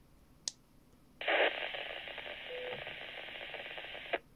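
A click, then about a second in a Baofeng UV-28 handheld's speaker opens with about three seconds of hiss from the repeater answering a radio check, with a brief faint tone partway through. The hiss cuts off sharply as the squelch closes: the radio has reached the repeater.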